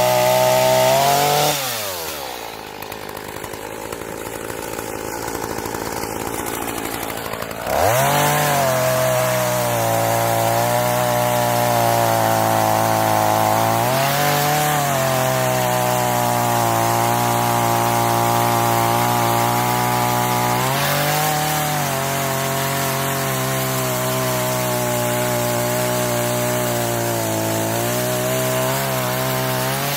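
Homelite chainsaw's two-stroke engine running on a newly fitted carburetor. About two seconds in, it drops to a lower, quieter note. At about eight seconds it jumps back to full, steady running, with brief rev-ups around the middle and again later. It dies away at the very end.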